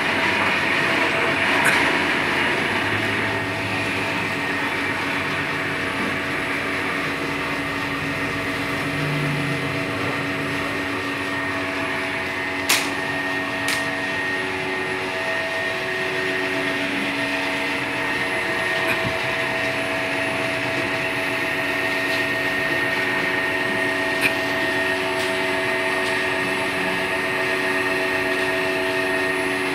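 A large electric-driven machine running steadily, a constant hum and whine made of several steady tones, with a couple of sharp clicks about halfway through and another near the end.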